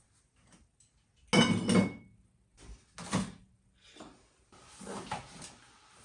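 Household items and dishes being handled and set down: a loud clatter with a brief ringing tone about a second in, then softer knocks and rustling.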